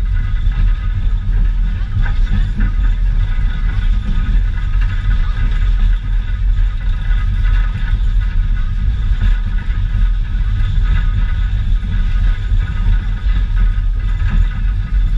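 Steady rumble of an open-air heritage railway passenger car rolling along the track, heard from on board, with wind buffeting the microphone and a faint steady high whine above it.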